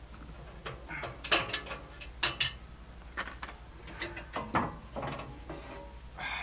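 Ratchet wrench clicking in short irregular runs on the rear bumper bolts of a VW bus, with metal clanks and scrapes as the bumper is worked loose and pulled off.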